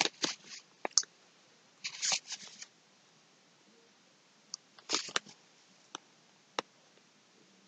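Short bursts of rustling and crinkling as a skein of yarn and its label or packaging are handled, with quiet gaps between and a couple of single light ticks near the end.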